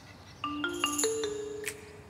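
Background music: a few light, plinking mallet-percussion notes in a marimba-like sound, entering about half a second in and held briefly.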